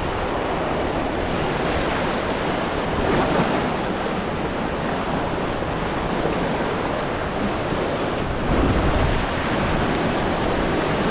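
Rushing river water from the rafting stretch, a steady roar of whitewater, with wind buffeting the microphone.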